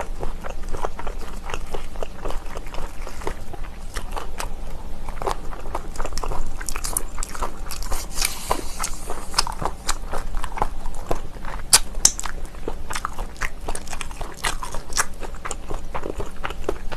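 Close-miked eating: kimchi being bitten, crunched and chewed in a quick run of sharp, wet crunches and clicks, busiest about eight to ten seconds in.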